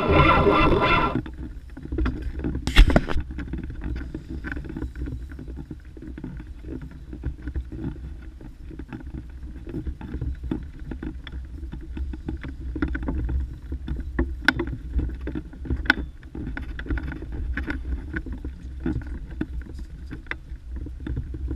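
A burst of music cuts off about a second in. Then comes a steady low rumble of wind buffeting the ice-fishing shelter, with scattered small clicks and knocks from the rod being handled; the sharpest knock is about three seconds in.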